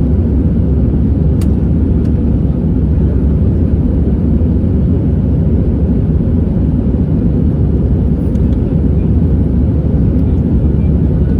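Cabin noise inside an Airbus A320 in flight: a steady, loud, low drone of the jet engines and rushing air, unchanging throughout.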